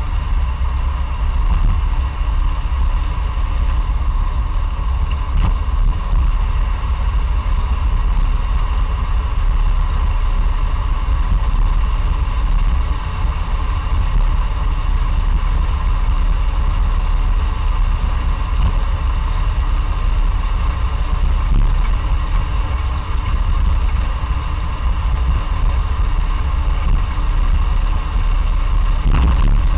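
Classic Fiat 500's air-cooled two-cylinder engine running steadily as the car drives along, with one short knock near the end.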